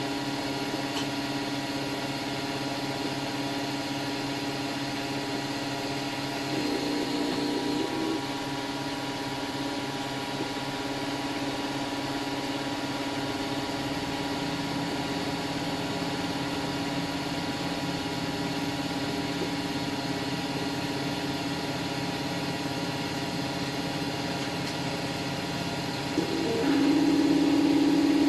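Wanhao Duplicator 4 3D printer running, its stepper motors giving a steady whine of several tones. About seven seconds in the motors briefly go louder and higher, and near the end the whine steps up to a louder, stronger tone.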